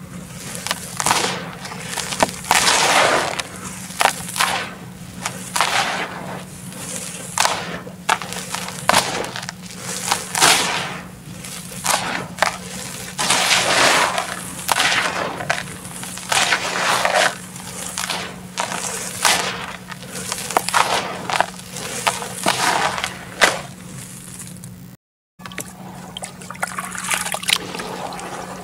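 Hands scooping, squeezing and crumbling dry red dirt in a plastic tub: repeated gritty crunching and rustling, about one or two handfuls a second. Near the end, after a brief silent break, hands squelch and slosh in watery red mud.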